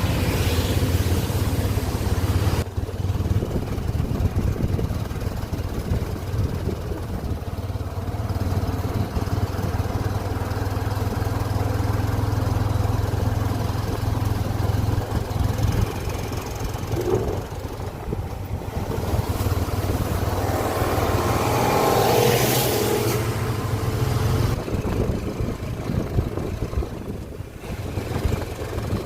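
A vehicle engine running steadily with road and wind noise; the low engine drone drops away about three-quarters of the way through.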